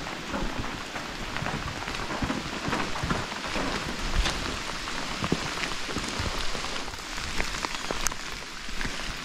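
Steady rain falling, with many scattered sharper drop strikes.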